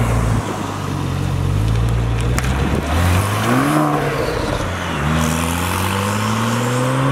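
Porsche 911 Turbo's twin-turbo flat-six accelerating hard. Its pitch climbs through the gears and dips briefly at each upshift, about three and four seconds in, then rises again in a long pull.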